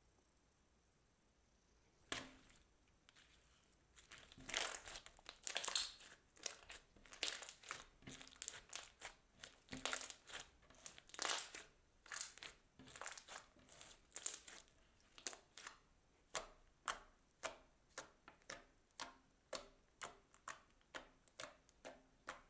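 Glassy slime squished and poked by hand, giving short sticky crackling pops. They start after about two seconds of quiet, come irregularly at first, then settle into about two a second.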